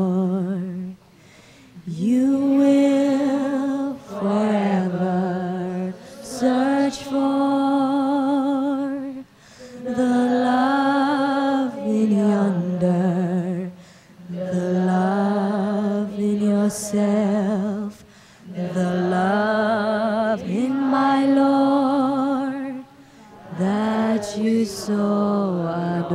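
A woman singing a slow love song solo into a microphone, unaccompanied: long held notes with vibrato, sung phrase by phrase with short breaks between.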